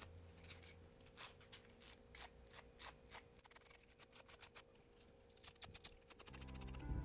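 Faint, irregular small clicks and scrapes of fingers handling the wire ends on a sewing machine motor's field coil. Background music comes in near the end and grows louder.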